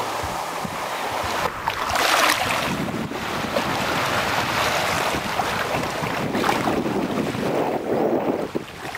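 Wind buffeting the microphone over small waves washing onto a sandy shore, with rises and falls in the noise.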